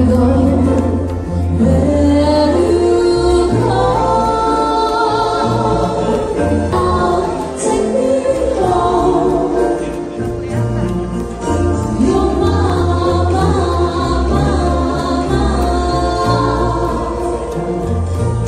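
A song playing: singing over deep, held bass notes that change every couple of seconds.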